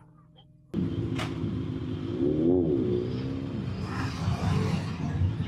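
Scooter engine running under way, starting suddenly just under a second in, with its pitch rising and then falling once about halfway through.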